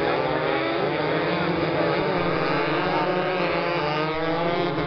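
Several racing motorcycles running hard together as a pack, their overlapping engine notes rising and falling as they rev and change gear through a corner.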